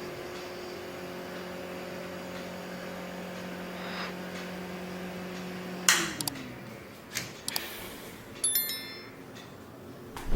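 Small DC-motor table fan running with a steady hum, switched off with a click about six seconds in and winding down. Several clicks and handling knocks follow, with a sharp knock at the very end.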